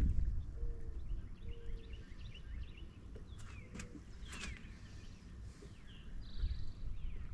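Outdoor ambience: faint bird chirps scattered throughout over a low, uneven rumble, with a couple of sharp clicks in the middle.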